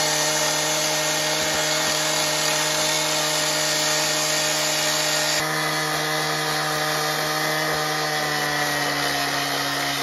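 Gas-powered two-stroke cut-off saw running at full speed, its abrasive disc grinding through a steel truck frame rail. The engine's note stays steady, and the cutting hiss changes a little about halfway through.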